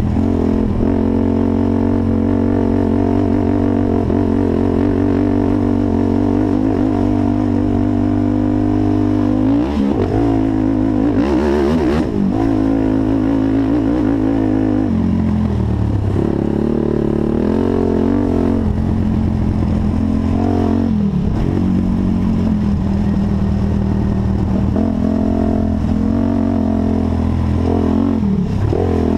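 Honda TRX450 quad's single-cylinder four-stroke engine running hard, held at steady high revs for about ten seconds, then dropping and climbing again several times as the throttle is eased off and reopened.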